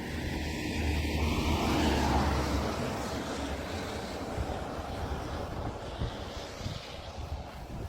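A motor vehicle going past, its noise swelling to a peak about two seconds in and then slowly fading away.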